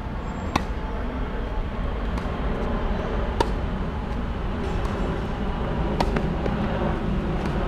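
Tennis balls struck by rackets in a rally: three sharp strikes about two and a half seconds apart, with fainter ball bounces between, over a steady low rumble.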